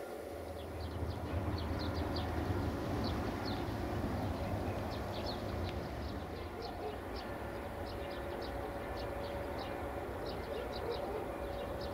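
Low rumble of a railway diesel engine in a rail yard, swelling about a second in and easing off after the middle, with a faint steady hum. Small birds chirp in short, repeated notes over it.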